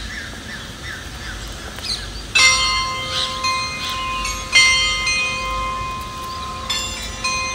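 Bells of the Amul carillon chimes tower, struck by computer-controlled hammers, sound a slow tune. Each new note comes about every two seconds and rings on under the next. Birds chirp before the first stroke.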